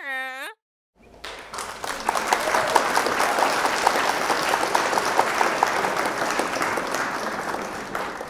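Crowd applause, starting about a second in, dense and steady, then fading out near the end.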